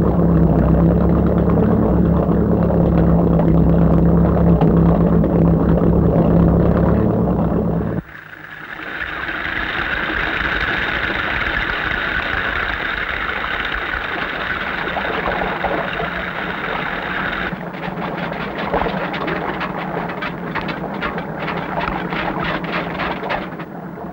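A boat's engine runs with a loud, steady low rumble and cuts off abruptly about eight seconds in. A steady rushing hiss follows, and in the last seconds comes a rapid, irregular run of clicks.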